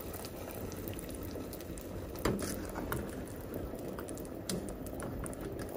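Pot of beef and water simmering on low heat: a steady bubbling hiss with a few scattered small clicks.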